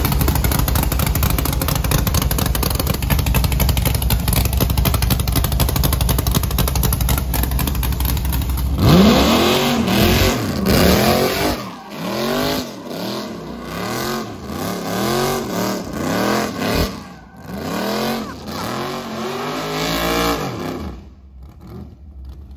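A pickup truck's 408 stroker V8 running loud and steady, then, from about nine seconds in, revving up and down again and again, about once a second, while it spins burnout donuts.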